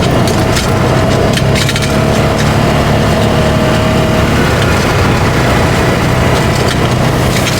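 Polaris RZR 570 side-by-side's single-cylinder engine running steadily as it drives along a dirt bush track, with tyre and body noise. A run of sharp cracks and crackles comes over the first two seconds.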